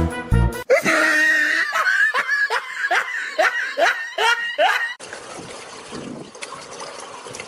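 Laughter: a rapid run of short rising calls, about three a second, for some four seconds. It then gives way to a quieter, even background hiss.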